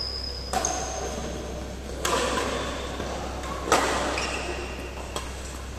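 Badminton rackets striking a shuttlecock in a doubles rally, four sharp hits about a second and a half apart, with short high squeaks between them.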